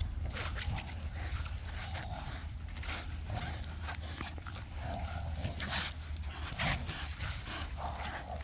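American Staffordshire terrier growling as it pulls and tugs hard on a bite tug held by its handler.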